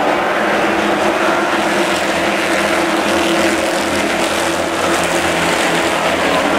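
The V8 engines of a pack of late model stock cars racing around a short oval together, a loud, steady drone of many engines at once.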